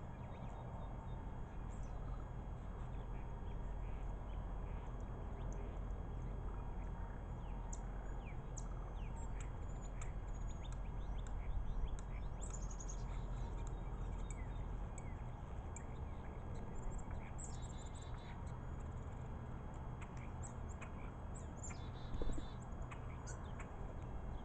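Birds chirping with many short, high calls scattered throughout, over a steady low background rumble; a single brief louder knock comes near the end.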